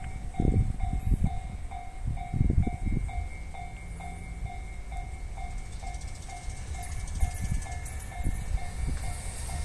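Railway level-crossing warning bell ringing in a steady repeating ding, about twice a second, over wind rumble on the microphone. Faint high hiss and ticking from the rails build near the end as the freight train approaches.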